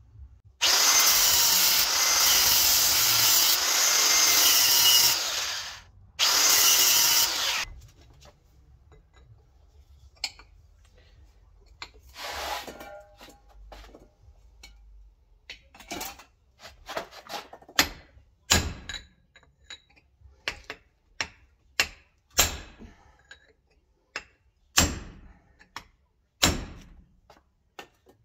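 A grinder runs for about five seconds, then again briefly after a short break. From about ten seconds in, a hammer strikes a chisel a dozen or more times at irregular intervals, cracking a worn pressed-on axle bearing so it can be split off.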